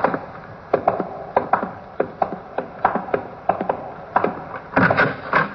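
Radio-drama sound effect of footsteps walking at an even pace, about three steps a second, with a louder clatter near the end.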